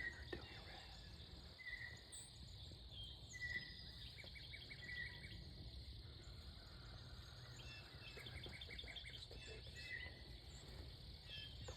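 Faint woodland ambience: small birds giving short chirps, with two quick trills of rapid repeated notes, over a steady low background rumble.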